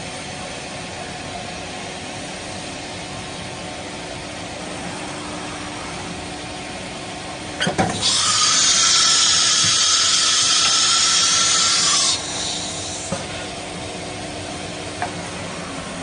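Woodworking ATC CNC router running with a steady mechanical hum. About eight seconds in there is a knock, followed by a loud, high hissing burst lasting about four seconds before the steady running returns.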